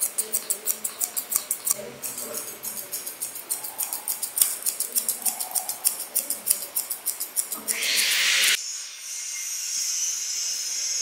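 Dog-grooming shears snipping rapidly through a Pomeranian's fur, about five snips a second. About eight seconds in the snipping gives way to a short loud hiss, then a steady high hiss.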